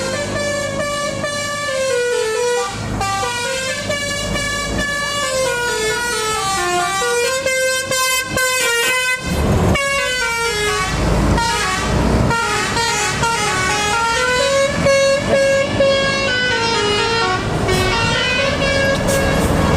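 Telolet basuri horn on an Indonesian tour bus playing a melody, its tuned horns stepping from note to note. A few brief rushes of noise cut across it around the middle.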